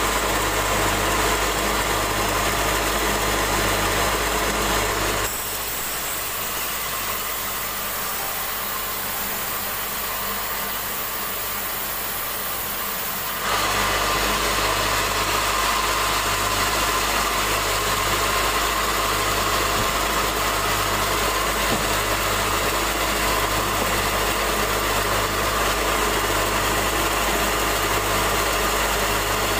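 Electric band sawmill running steadily with a low hum while its blade saws a board off a log. For about eight seconds, starting some five seconds in, the low hum drops away and the sound turns thinner and hissier.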